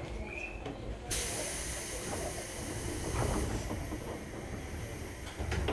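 Sudden hiss of compressed air starting about a second in, loudest for its first two seconds and then fading, over the low running rumble of a 103 series electric train heard from its driver's cab.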